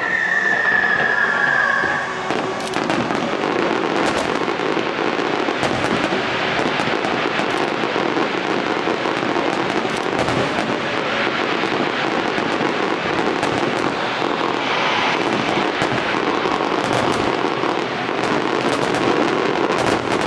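A dense, unbroken barrage of aerial fireworks: a steady crackling wash with many sharp cracks and bangs throughout.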